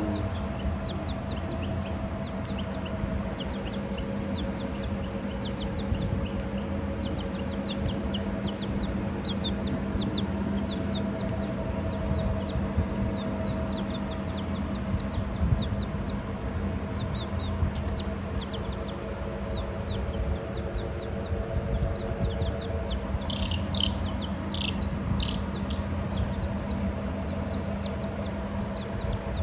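Young chicks peeping continually in short, high, falling chirps, with a run of louder peeps about three-quarters of the way through. A steady low hum runs underneath.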